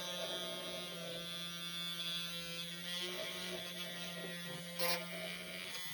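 Small electric micro drill running steadily with a fine 0.5 bit as it bores a pilot hole in a model part. A sharp click comes near the end, and the motor stops right at the end.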